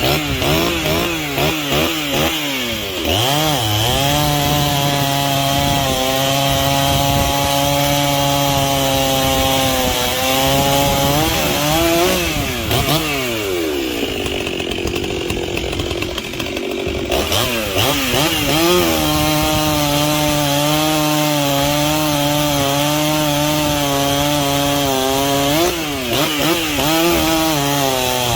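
Stihl 034 converted to a 036, a ported two-stroke chainsaw of 61.5 cc, blipped up and down a few times and then cutting wood in two long cuts with the engine holding a steady pitch under load. Between the cuts it eases off briefly, and near the end it blips again.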